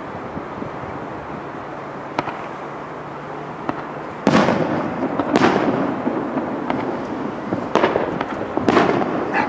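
Fireworks bursting: a couple of sharp single cracks, then from about four seconds in a run of louder bursts, each with an echoing tail.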